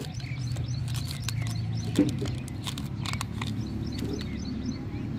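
Crinkling and small clicks of a paper seed packet being unfolded and handled, with a sharper click about two seconds in. Under it run a steady low hum and faint repeated high chirps.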